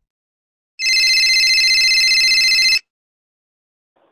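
Telephone ringing once: a loud, trilling ring lasting about two seconds.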